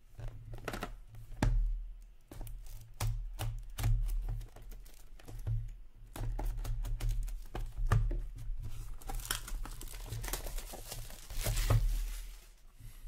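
Plastic shrink-wrap being torn and crinkled off a trading card box: scattered crackles and short rips, densest a few seconds before the end.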